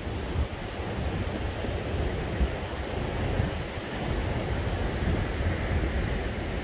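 Wind blowing over the microphone outdoors: a steady rushing noise with a fluttering low rumble.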